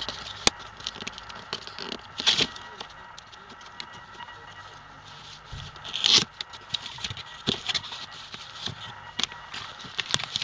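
Hands opening a cardboard knife box on a plastic courier mailer: cardboard flaps scraping and crinkly plastic crackling, with scattered small clicks. There is a louder rustle about two seconds in and another about six seconds in.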